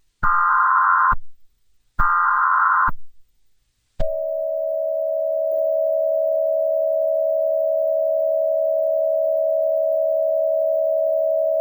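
Emergency Alert System tones: two digital data bursts of the alert header, each about a second long, followed about four seconds in by a long, steady attention tone.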